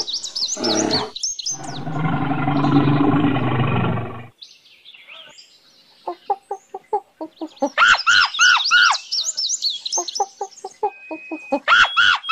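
A run of animal calls: a few high chirps, then a long low call lasting about three seconds, then, after a quieter gap, quick runs of short pips mixed with loud high arching calls, like the clucking and squawking of fowl.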